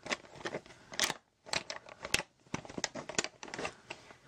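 Close-up rummaging in a shiny plastic makeup bag: quick, irregular crinkling of the bag's material and clicking of makeup items knocking together.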